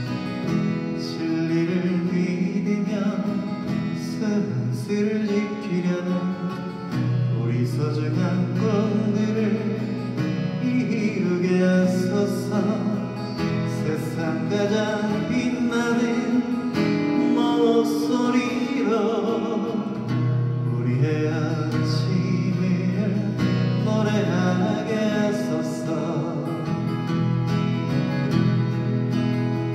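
A man sings a Korean ballad, accompanying himself on a strummed steel-string acoustic guitar.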